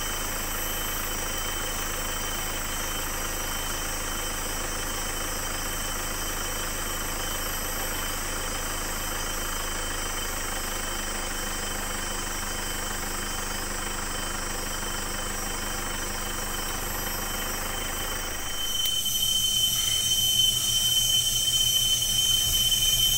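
4x4 engine running steadily, heard from inside the vehicle. About 19 s in it gets louder, with a high steady whine and a rougher low rumble, as the engine is worked harder.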